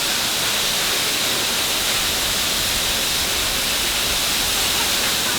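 A large waterfall's falling water making a steady, dense rush, thought to be running extra big after recent typhoon rain.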